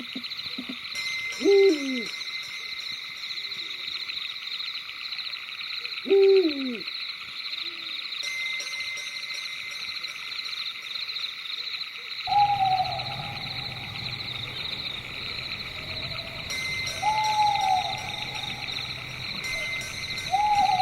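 Owl hooting over a steady, pulsing high chorus of night insects: two long hoots falling in pitch in the first half, then, after about twelve seconds, a low hum joins and three shorter hoots follow.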